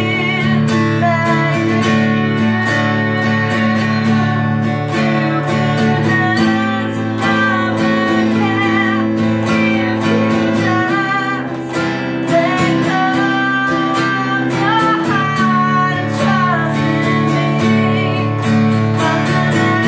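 A woman singing a song while strumming an acoustic guitar, her held notes wavering.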